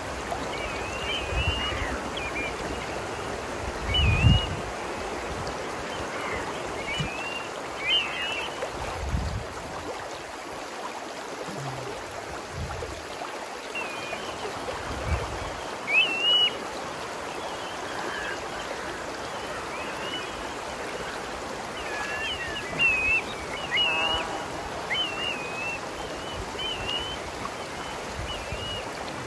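Shallow, rocky river rushing steadily over stones, with short high chirps scattered above the water noise and a few brief low thumps.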